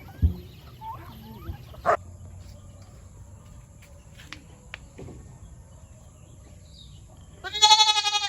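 A goat bleats once, loud and wavering, near the end; before it there are only a few faint knocks over quiet farmyard background.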